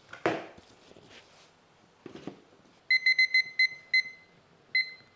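A short knock near the start, then seven short, identical electronic beeps at uneven intervals, from about three seconds in. They are the key beeps of a kitchen appliance's keypad, pressed to set the steaming time.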